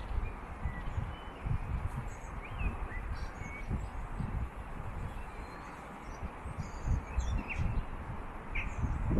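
Low, uneven rumble of wind and bicycle movement on the microphone, with a few short, high bird chirps now and then.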